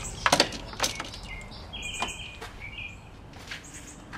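A few sharp metallic clicks and knocks from car air-conditioning parts and tools being handled, with short high bird chirps in the background.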